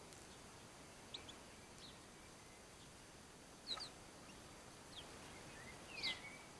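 Birds calling: a handful of short, high chirps scattered over a faint steady hiss, the loudest two about halfway through and near the end.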